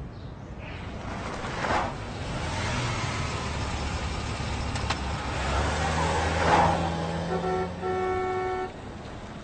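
Car horn honking: two quick toots, then a held blast of about a second that stops abruptly. Under the horn is the low rumble of cars and traffic.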